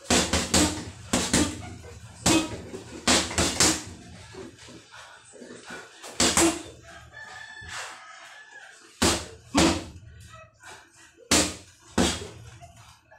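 Boxing gloves striking a hanging heavy bag in quick combinations of two to four punches, with short pauses between the flurries.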